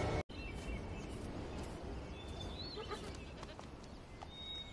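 Steady wind noise with scattered faint clicks and a couple of faint high chirps.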